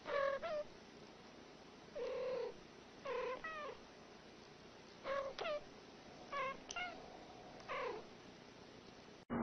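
Two domestic cats exchanging short meows and chirps, about ten brief calls in turn, mostly in ones and pairs with pauses between.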